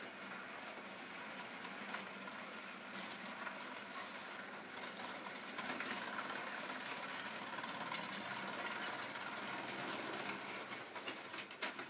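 Model GWR tank engine's small electric motor running as it hauls wagons rolling along the track. It grows louder about six seconds in as the train passes close, and a few sharp clicks come near the end.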